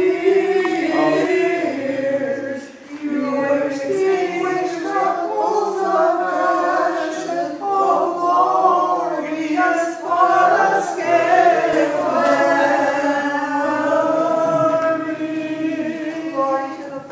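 Orthodox congregation singing a hymn together a cappella, men's and women's voices in sustained, chant-like phrases with a short break about three seconds in.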